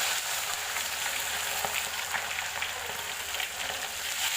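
Small wader fish frying in a pan of hot oil: a steady sizzle with scattered crackling pops.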